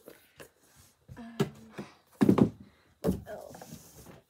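Packaged merchandise and a hardcover book being handled in a cardboard shipping box: thuds and rustling as items are set down and dug out, with the loudest thud a little over two seconds in and another about a second later.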